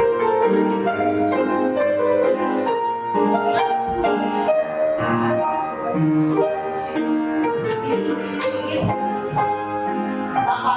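Piano music accompanying a folk-dance barre exercise, its notes changing steadily, with several short sharp taps over it.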